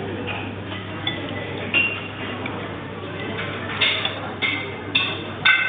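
Cutlery clinking against plates at a restaurant table: a series of short, ringing clinks that come more often in the last two seconds, over a steady low hum of the dining room.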